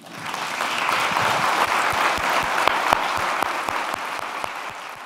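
Audience applauding: many hands clapping together, swelling quickly at the start and tapering off near the end.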